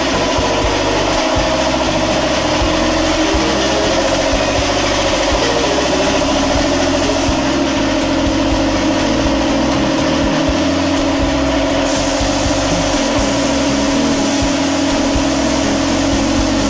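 Portable electric air compressor running steadily: a loud, even hum with a hiss above it, which brightens about twelve seconds in. It is supplying air to the hose-fed sprayer applying sealer to a concrete floor.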